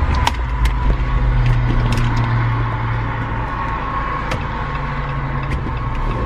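Car driving, heard from inside the cabin: a steady low rumble of engine and road noise, with scattered light ticks.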